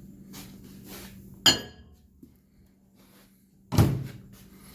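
Loading an over-the-range microwave: a sharp clack with a brief ring about a second and a half in, then the microwave door shutting with a louder thud near the end.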